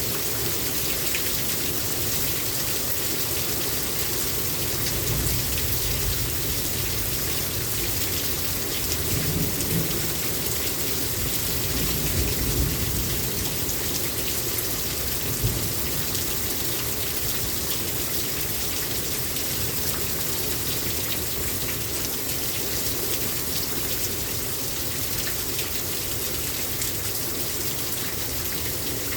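Heavy rain pouring down steadily, with a few low rumbles of thunder in the first half.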